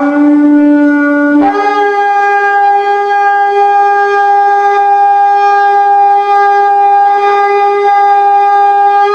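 A shofar blown in one long blast. It starts on a low note, jumps up to a higher note about a second and a half in, and holds that note steadily until it stops near the end.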